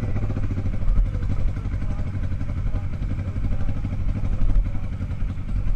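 Street motorcycle engine running at low speed on a dirt trail, a steady low rumble.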